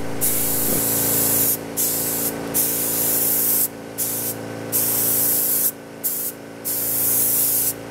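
Gravity-feed paint spray gun spraying paint in a strong hiss that stops and restarts about six times in short passes, over a steady low hum.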